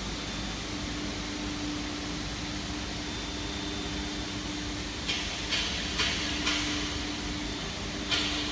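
Steady machine hum with a low steady tone; from about five seconds in, a series of short hisses comes roughly every half second, with two louder ones near the end.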